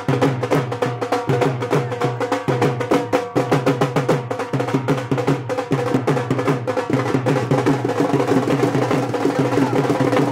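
Music with fast, steady drumming and sharp clicking percussion over sustained pitched instruments.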